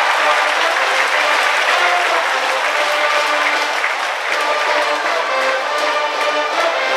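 High school brass band playing a baseball cheering tune in the stands, with the crowd's clapping and noise underneath.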